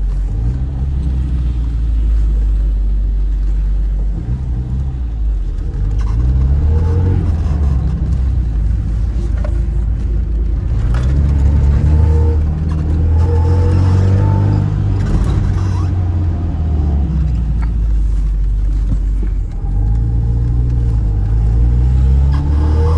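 A Tofaş car's engine and exhaust, heard from inside the cabin while driving. The engine revs up in pitch under acceleration several times and drops back between the pulls, as at gear changes.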